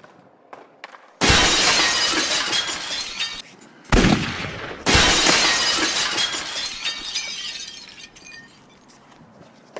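Glass-shattering sound effect. A sudden crash about a second in, with shards tinkling down, then a short low thud just before four seconds. A second crash follows, and its tinkling fades out over about three seconds.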